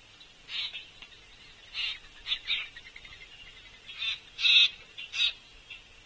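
A string of about seven short, harsh, rasping bird calls at irregular intervals, the loudest about four and a half seconds in.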